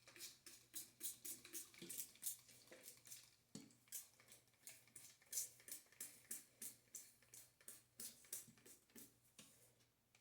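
Trigger spray bottle spritzing water onto hair in quick, faint squirts, about three to four a second.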